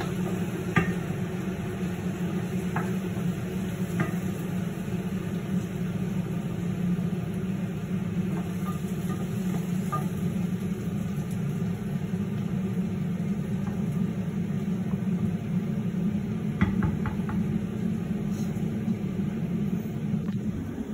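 Steady low hum of a fan or motor, with a few light clinks of a utensil against a metal pot, including a quick cluster of them about two-thirds of the way through.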